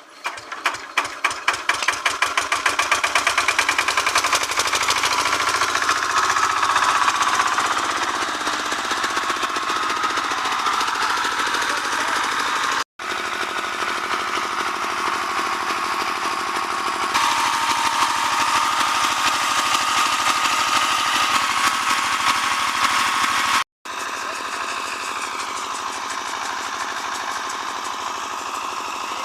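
Home generator's engine catching and starting: its firing beats come faster and faster over the first few seconds, then it runs steadily. The sound cuts out abruptly twice for an instant.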